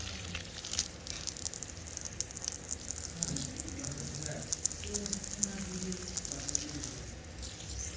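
Running water splashing and trickling from a tap or pipe: a steady crackly hiss dotted with small splashes.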